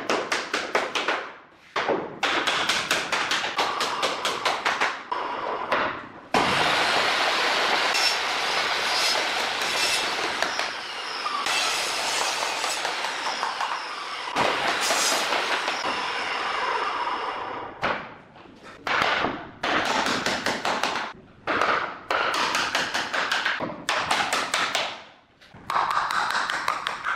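A hammer driving nails through a wooden skirting board into the wall, in fast runs of sharp blows. In the middle there is a longer stretch of continuous clattering noise.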